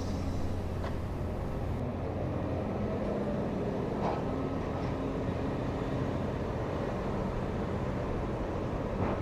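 Diesel engine of demolition machinery running steadily, with a few faint knocks about a second in, around four seconds in and near the end.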